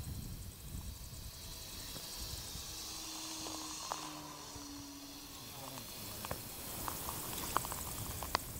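Faint drone of a Mini Extra 330 radio-controlled model plane's motor in flight, sinking slightly in pitch as it passes, over a steady outdoor hiss and light wind rumble. A few sharp clicks come near the end.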